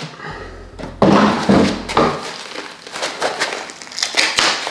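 Cardboard and paper packaging rustling and crinkling as a box is unpacked, with a sharp knock about a second in, then a small paper pouch crinkling in the hands.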